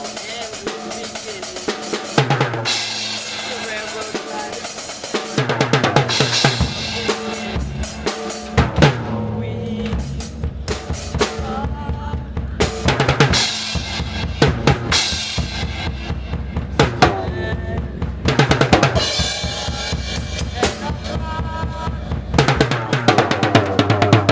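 Instrumental song intro: a drum kit keeping a steady beat, with a bass line filling in about five seconds in.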